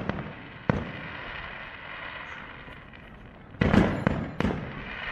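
Aerial fireworks bursting: one sharp bang about a second in, fainter crackling after it, then a quick run of three or four loud bangs near the end.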